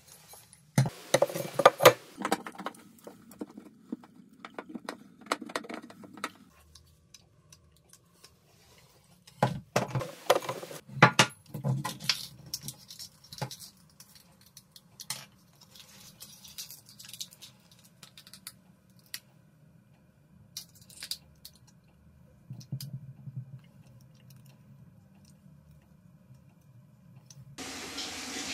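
Hand-work noises at a shower drain: irregular clicks, taps and scrapes of a brass drain flange and a hand tool against the shower pan's drain opening, in two busier clusters. Near the end a steady hiss takes over.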